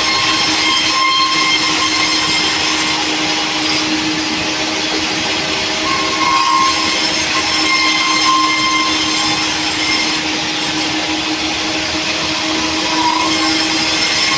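Sawmill running steadily: a loud, constant machine drone with a steady hum and short, higher whines every few seconds.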